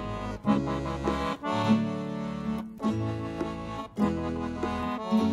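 Instrumental music with a steady beat: a melody over bass notes and chords.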